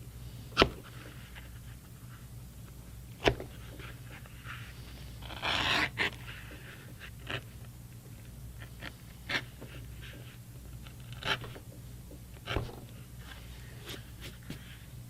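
Leather edger shaving the edges of a leather knife sheath in short scraping strokes, with a longer scrape about five and a half seconds in and several sharp knocks spread through.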